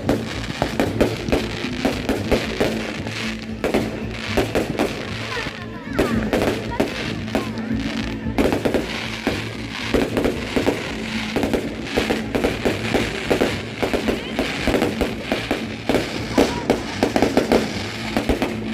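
Fireworks display with aerial shells bursting in rapid, irregular succession, bangs and crackles overlapping throughout, over steady background music.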